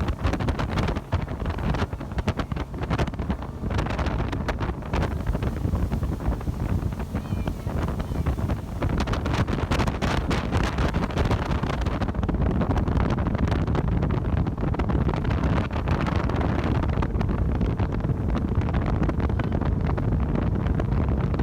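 Loud, gusting wind buffeting the microphone, a dense low rumble that starts and stops abruptly.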